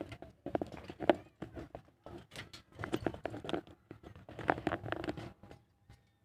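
Quaker parrot chattering in short, irregular bursts, falling quiet near the end.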